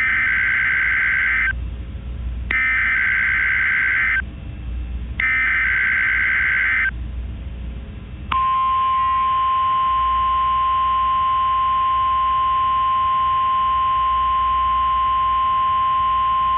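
Emergency Alert System header: three bursts of SAME data tones, each about a second and a half long with a short pause between them. About eight seconds in, the steady EAS attention-signal tone starts and holds.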